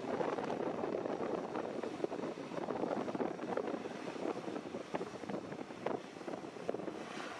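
A NetJets Cessna business jet's engines heard through heavy wind buffeting on the microphone: a steady rush that flutters with the gusts and has no clear engine tone.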